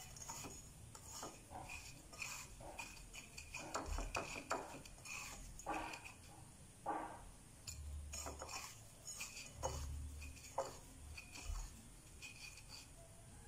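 Fingers rolling batter-coated banana pieces in dry breadcrumbs in a ceramic plate: faint, irregular rustling and scratching of the crumbs, with occasional light clinks of the plate and a few soft knocks.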